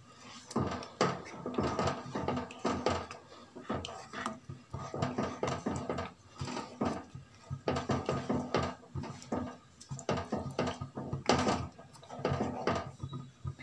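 Wooden spatula stirring thick chicken gravy in a non-stick frying pan: irregular scraping and wet squelching strokes against the pan, with occasional knocks on the pan.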